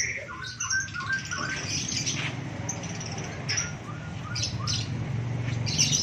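Many caged birds calling at once: runs of short, evenly spaced notes mixed with high chirps and squeaks.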